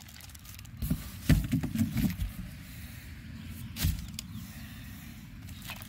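Handling noise: a cluster of dull knocks and rustles about a second in, then a single sharper knock near four seconds.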